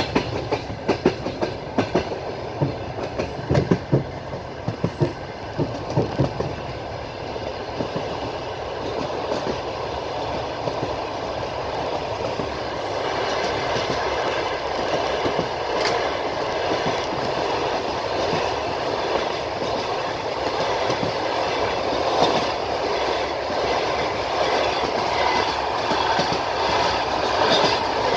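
Railway carriage wheels clacking over rail joints, a run of clicks in the first several seconds. The clacks then give way to a steady rolling rumble and hiss of the moving train that slowly grows louder.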